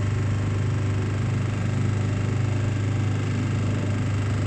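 Small hire motorboat's engine running steadily, a constant low drone.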